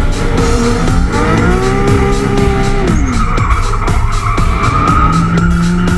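Drift car's engine revving and its tyres squealing through a slide. The engine pitch climbs about a second and a half in, holds, then falls away around the three-second mark.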